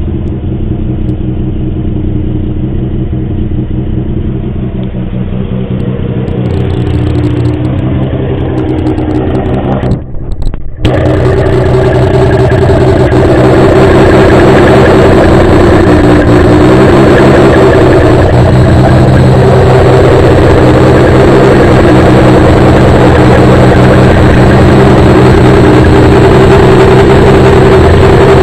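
Nissan 300ZX V6 exhaust, running through test pipes, an unresonated X-pipe and 12-inch resonators, holding a steady low engine speed with small wobbles in pitch. About ten seconds in the sound cuts out briefly, then comes back louder and fuller and stays steady.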